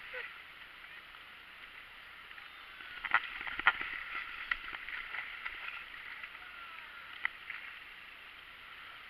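Shallow seawater lapping and sloshing at the waterline, with a run of sharp splashes about three to five seconds in and another a little after seven seconds.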